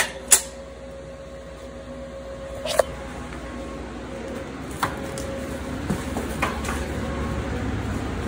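Handled steel pieces of a home-made liner clamp giving half a dozen sharp metal clicks and knocks, the loudest near the start, over a steady low hum and rumble that slowly grows louder.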